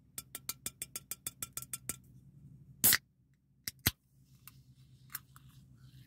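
Fingernail tapping quickly on the top of an aluminium soda can, about a dozen taps, then the can's pull tab popping open with a short burst about three seconds in, followed by two sharp clicks.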